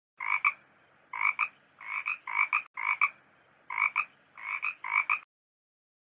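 Frog-croak sound effect: eight short croaks, each a quick double pulse, about one every two-thirds of a second, stopping about five seconds in.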